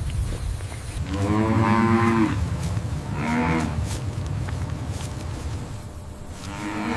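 Longhorn cattle lowing: one long moo, a shorter one a second later, and another beginning near the end, after a low rumble in the first second.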